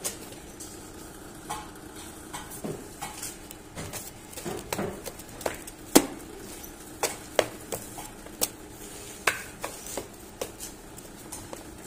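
Sheets of paper being handled and shuffled on a metal machine bed: rustling with irregular sharp clicks and knocks, the loudest about midway, over a steady low hum.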